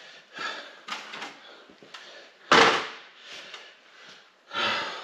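A few separate knocks and clatters of things being handled, the loudest a sharp clunk about two and a half seconds in and another near the end.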